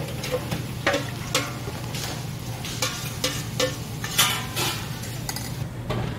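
Metal ladle scraping and clinking against a stainless steel pot as thick pork soup is scraped out of it into a clay pot, in irregular sharp knocks and scrapes. A steady low hum runs underneath.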